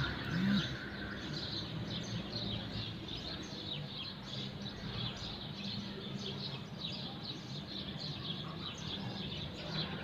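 Many small birds chirping, with short high chirps overlapping irregularly throughout. A steady low hum runs underneath.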